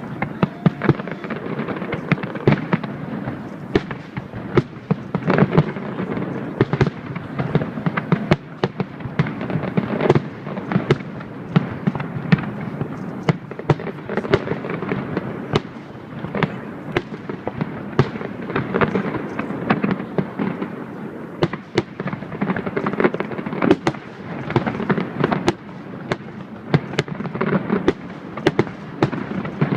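Aerial fireworks bursting in a dense, continuous barrage, several sharp bangs a second with crackle between them.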